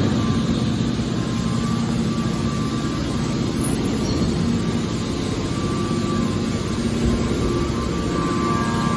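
Hydraulic aluminium-can baler running: the steady hum of its motor and hydraulic pump.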